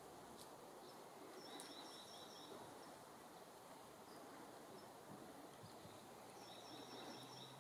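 Faint outdoor background with a bird calling twice, each call a quick run of about six high chirps, about a second and a half in and again near the end.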